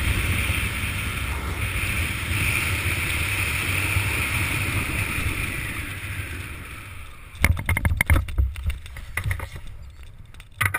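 Wind rushing over a helmet camera's microphone during a parachute canopy descent, fading as the canopy slows for landing. About seven seconds in, a burst of knocks, thumps and rustles as the skydiver touches down and handles the collapsing canopy and gear, with one more knock near the end.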